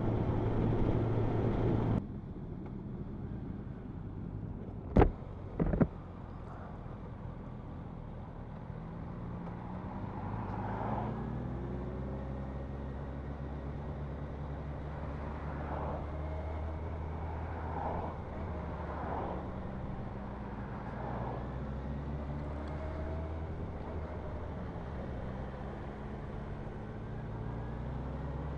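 Motorcycle engine running as the bike is ridden, its note shifting and stepping up over the second half. Two sharp knocks about five seconds in.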